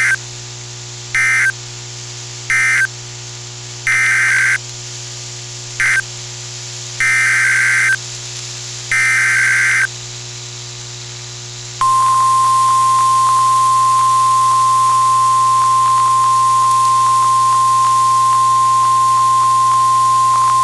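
EAS SAME header: a run of loud, harsh digital data bursts, some short and some about a second long. About twelve seconds in, the NOAA Weather Radio 1050 Hz warning alarm tone starts: one steady, loud single-pitch tone for about nine seconds, which signals that a warning broadcast is about to follow. A steady low hum from the receiver runs underneath.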